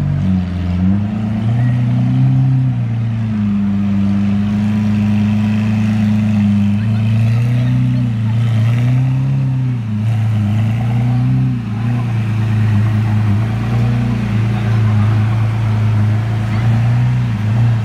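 Lamborghini Aventador's V12 engine running at low revs as the car creeps forward and turns, the note rising and falling with small throttle blips several times through the middle.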